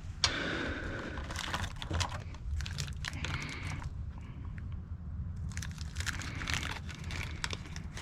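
Hands working small plastic turn-signal bulb parts: irregular clicks and crinkling rustles over a low steady hum.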